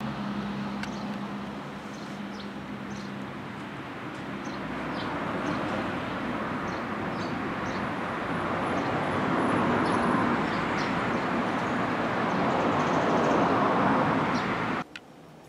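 Outdoor ambience: a steady rushing noise that grows louder over the first ten seconds, with a low hum for the first few seconds and faint, scattered bird chirps over it. Near the end it cuts off abruptly to a much quieter background.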